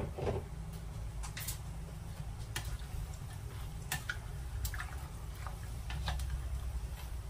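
A spatula tossing sliced cucumber, radish and pork stomach in a ceramic bowl: a louder knock right at the start, then scattered light clicks and taps at an uneven pace as the spatula meets the bowl and the food.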